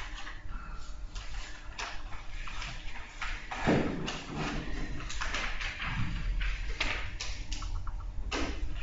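Irregular rustling and knocking of objects and papers being handled at a conference table, with a louder knock about three and a half seconds in, over a steady low room hum.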